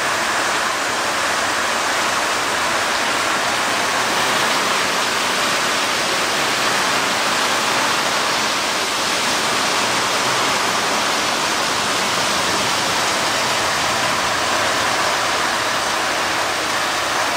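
Torrential downpour: very heavy rain falling in a dense, steady rush with no let-up.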